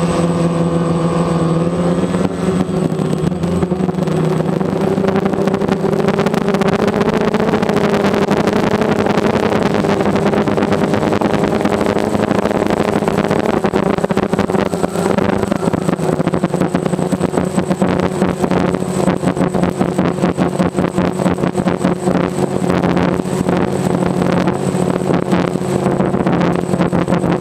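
DJI Phantom quadcopter's motors and propellers buzzing steadily in flight, picked up by the camera on board, with a thin high whine; the pitch shifts slightly a few times as the throttle changes.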